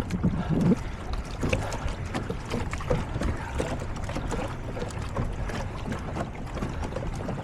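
Water lapping and splashing against a kayak hull, with wind on the microphone.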